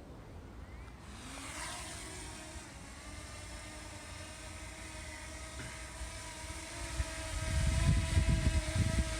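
DJI Mini 2 quadcopter's propellers spinning up for takeoff with a rising whine about a second in, then a steady propeller whine as it hovers. From about seven seconds in, gusts of wind buffet the microphone with loud, uneven rumbling.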